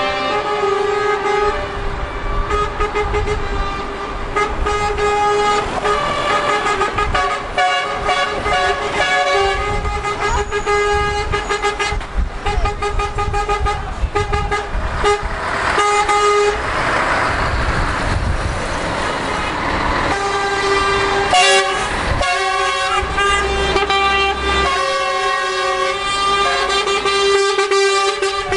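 A convoy of lorries passing with many truck horns blowing: long, overlapping blasts of different pitches, one held almost throughout, over the rumble of diesel engines. Between about a third and two thirds of the way in, a rush of noise rises and fades as a lorry passes close.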